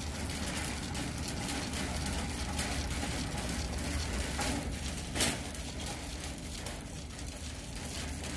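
Wire shopping cart being pushed along a concrete floor, its wheels rumbling and the metal basket rattling steadily, with one sharp clack about five seconds in.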